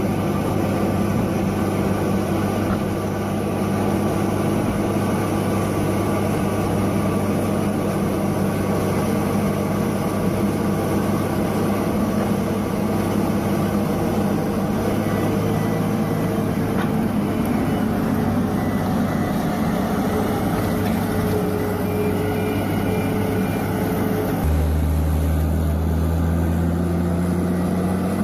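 Heavy machine's engine running steadily with a low hum; about 24 seconds in the sound changes abruptly to a deeper, louder drone.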